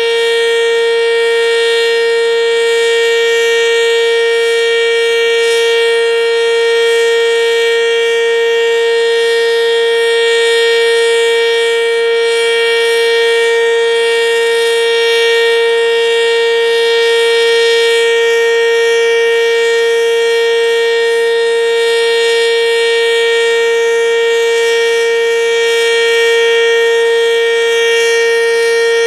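ASC OM-117 outdoor warning siren sounding one loud, steady tone at full pitch, rich in overtones, with no rise or fall.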